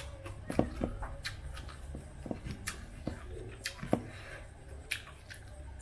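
Close-up eating sounds of someone chewing rice with raw leaves: a string of sharp, irregular mouth smacks and clicks over a low steady hum.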